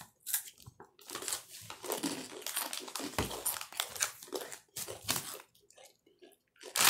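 Close-up crunching and chewing of Doritos tortilla chips in irregular crisp bursts, with the chip bag crinkling, and a loud sharp crackle near the end.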